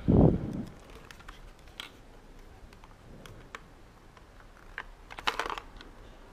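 Handling noise from a plastic Philips portable radio being turned over in the hand: a dull thump at the start, then scattered light plastic clicks and a short rustle about five seconds in.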